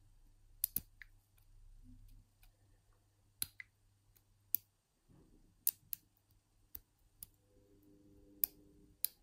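Lock picks working inside an Abus 85/60 padlock: sharp, irregular metallic clicks, about a dozen, as the pins are worked and set.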